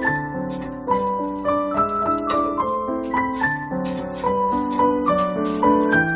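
Background piano music: a flowing melody of single notes over lower sustained notes, a new note every fraction of a second.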